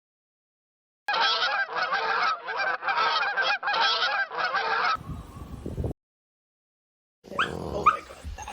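A flock of fowl honking: many overlapping calls in quick bouts for about four seconds, then a short low rumble. Near the end, high rising whimpers from a dog begin.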